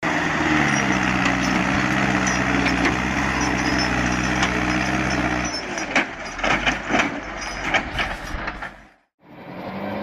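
A wheeled tractor's engine running hard with a steady note while its wheels churn in snow. About halfway through the steady note breaks up into irregular knocks and clatter, then cuts off near the end.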